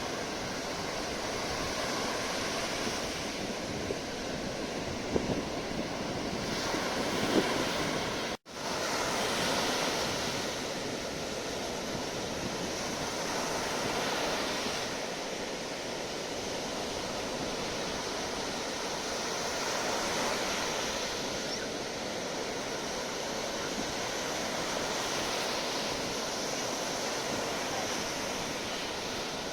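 Sea waves breaking and washing in, a steady surf noise that swells and ebbs every few seconds. The sound cuts out for an instant about eight seconds in.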